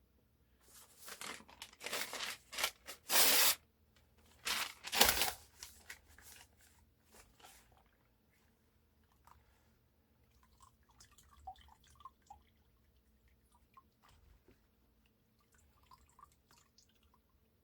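Newspaper being torn into strips: a run of ripping sounds over the first five seconds or so, the longest about three seconds in, followed by quieter crackling and faint scattered ticks.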